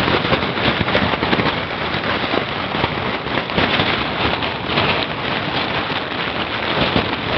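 Heavy rain and strong wind, the rain beating steadily on a wind-whipped clear plastic sheet held over a small fishing boat.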